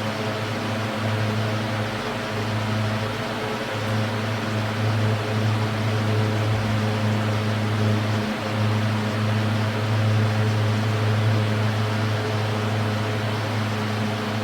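Air King 20-inch box fan running on high speed: a steady low motor hum under the even rush of moving air.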